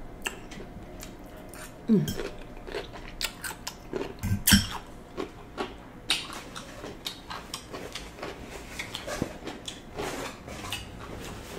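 Close-up chewing and crunching of cucumber salad, with scattered clicks of cutlery and glass bowls and a few sharper knocks about two and four and a half seconds in.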